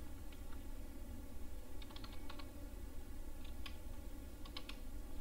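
Computer keyboard typing: a few short runs of key clicks, about two seconds in and again twice near the end, over a steady low background hum.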